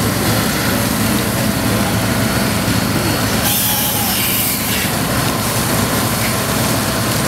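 Portable fire pump's engine running steadily as it feeds the hose lines, under a dense hiss of water jets. The hiss brightens briefly about halfway through.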